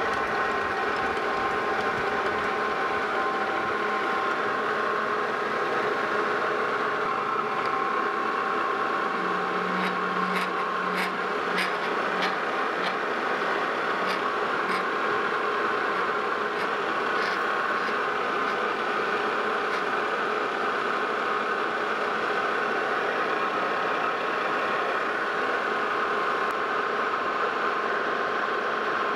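Metal lathe running under power with a steady whine while a single-point tool takes a cut along an external Acme thread on a long, thin shaft. A few faint ticks come about ten seconds in.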